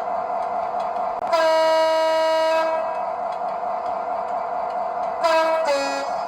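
Sound-fitted model diesel locomotive's speaker playing its horn over a steady engine hum: one long single-note blast about a second in, then near the end a short two-tone blast, high then low.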